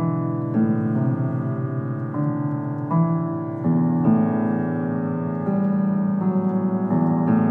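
Piano music: slow, sustained chords, each held and ringing into the next, with a new chord struck about once a second.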